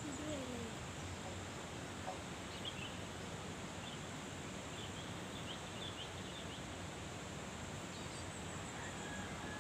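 Steady outdoor background noise, with faint bird chirps a few seconds in and a thin, steady high-pitched insect buzz.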